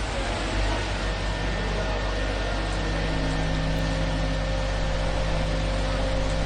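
Concrete mixer running as it pours concrete: a steady engine hum under an even rushing noise, with a low tone in the hum growing stronger about two and a half seconds in.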